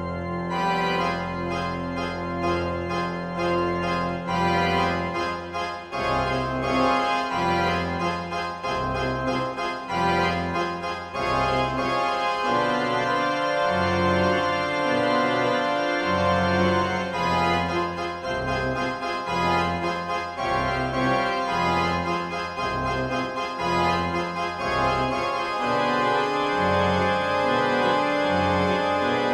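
Background music played on an organ: sustained chords over a bass line that moves to a new note about every second.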